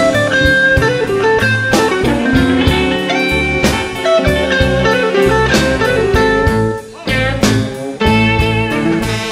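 Electric blues guitar solo with notes bending up and down, over a band backing of bass and drums.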